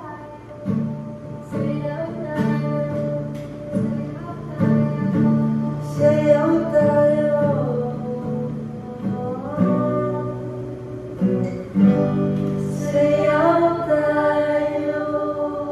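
Acoustic guitars strumming chords while women sing a song together.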